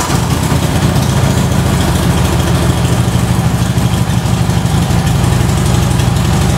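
Harley-Davidson Street Glide Special's V-twin engine catching right at the start after cranking, then idling steadily.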